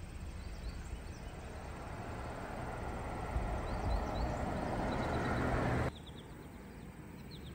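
A car's road and engine noise while driving, growing steadily louder for about six seconds and then cut off abruptly.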